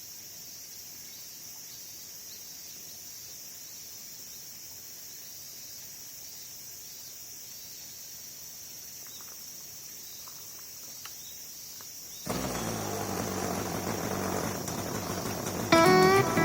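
Insects chirring steadily in a high, even drone for about twelve seconds. Then a louder rushing noise cuts in suddenly, and acoustic guitar music starts near the end.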